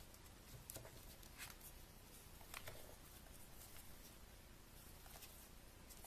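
Faint rustling and crinkling of a sheet of paper being folded and creased by hand, a few scattered crackles over quiet room tone.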